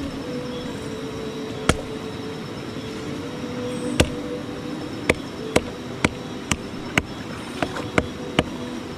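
About ten sharp knocks over slow background music, one about two seconds in, another at four seconds, then coming roughly twice a second until near the end.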